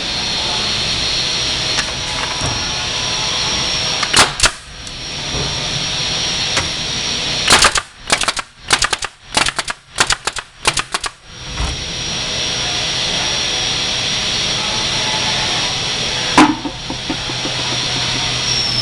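Hive body assembly machine running a cycle. Two clunks as it clamps the box, then a rapid run of about a dozen sharp shots as its fastening tools drive fasteners into the box joints, and one more clunk near the end, over a steady hiss and hum.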